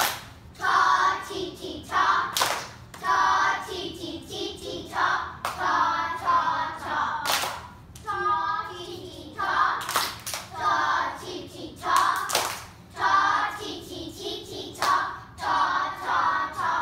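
A group of young children chanting rhythm syllables (ta, ti-ti) together in short phrases while clapping along.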